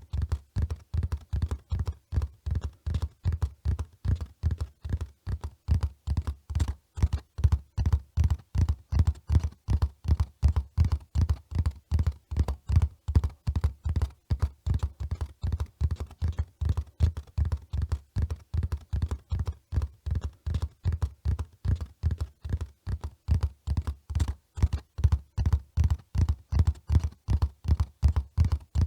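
Horse hoofbeats at a run: a steady string of low thuds, about three to four a second.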